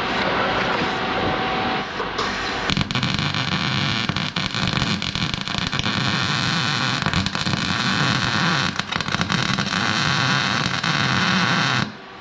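Electric arc welder crackling and hissing as a weld is run on the Jeep's Dana 30 front differential housing. The crackle grows fuller about three seconds in and cuts off suddenly near the end.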